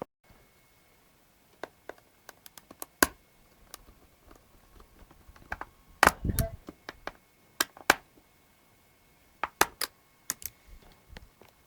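Irregular clicks and taps of hands working on an old laptop, with a louder clattering knock about six seconds in. A faint steady high whine lies underneath.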